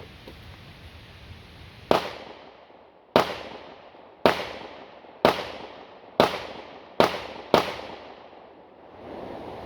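Seven pistol shots fired in a timed string, each bang followed by a short fading echo. They come roughly a second apart, with the last two closer together.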